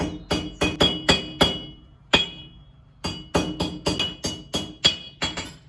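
Hammer blows on hot steel against an anvil, each strike ringing: a quick run of about seven, a pause about two seconds in, then a faster run of about ten. It is a bolt head being peened and domed with the ball end of a ball-peen hammer.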